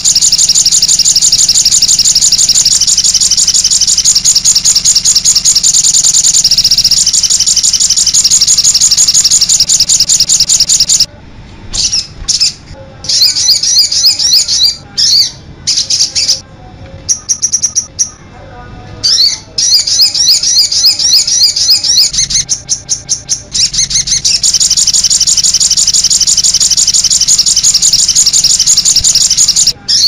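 High, rapid twittering song of a sogok ontong sunbird, played as a tutor (masteran) recording. It is an unbroken trill at first, breaks into short separate phrases with gaps about a third of the way in, and runs unbroken again for the last third.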